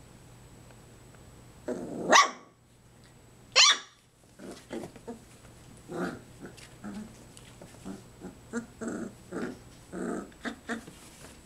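Three-and-a-half-week-old puppies playing together: two loud, sharp yelps about two and three and a half seconds in, then a string of short little growls and yips.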